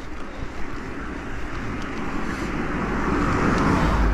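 Wind rushing over the microphone as a bicycle rolls along a road, a steady low rumble with a noisy hiss that swells and grows louder near the end.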